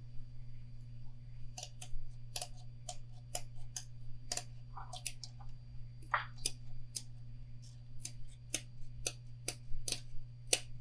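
Fiberglass mesh tape being handled and trimmed: a run of small, sharp, irregular clicks, about two a second. A steady low hum lies underneath.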